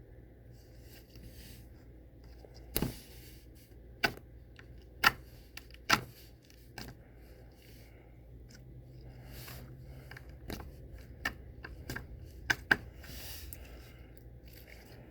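Slime being worked by hand, giving a string of sharp, separate pops and clicks, about half a dozen loud ones scattered unevenly, with quieter handling sounds between.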